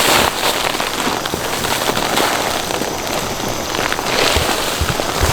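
A heavy fabric grow bag full of packed soil being worked over for sweet potatoes: a steady crackling and rustling of soil and bag fabric, with a few dull low thumps near the end.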